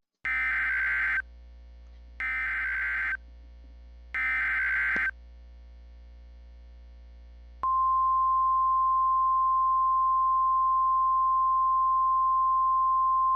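Emergency Alert System header: three one-second bursts of SAME digital data tones, about a second apart. A few seconds later a single steady attention tone, one unbroken pitch, starts and holds.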